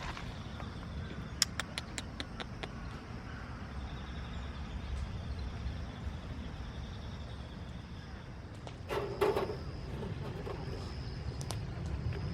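Outdoor ambience: a steady low rumble with faint high bird calls, a few sharp clicks near the start and a louder knock about nine seconds in.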